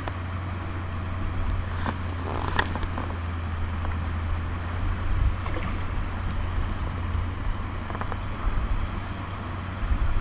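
Shallow stream water rippling, under a steady low rumble of wind on the microphone. A few short splashes come about two to three seconds in.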